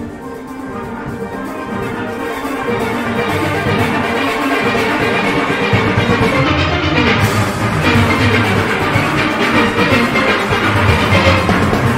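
Steel orchestra playing steelpans in full ensemble. It swells louder over the first few seconds, and the bass fills in about six seconds in.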